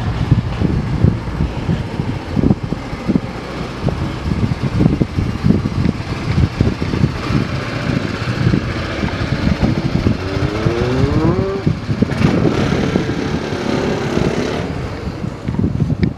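Wind buffeting the microphone in irregular gusts, with a brief rising tone about ten seconds in.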